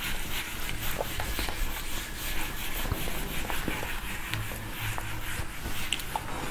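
Whiteboard eraser scrubbing across a whiteboard: a soft, steady rubbing with a few faint clicks.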